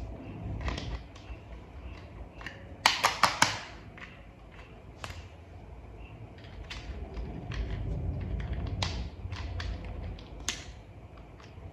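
Small plastic toy parts clicking and tapping together as they are fitted by hand, with a quick run of four sharp clicks about three seconds in.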